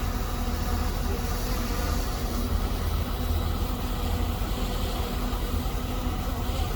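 Shantui DH17C2 bulldozer's diesel engine running steadily with a low, even drone.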